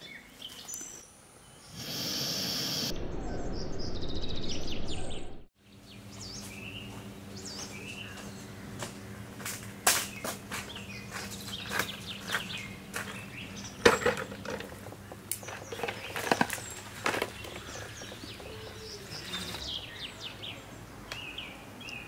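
Birds chirping in the background, with a loud rustling noise for a few seconds near the start that cuts off abruptly. Later a run of sharp crunches about once a second, footsteps on gravel.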